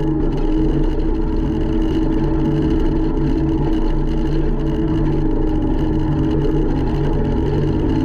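Takeuchi TL150 skid steer's diesel engine running steadily as the machine drives with a loaded bucket of loam.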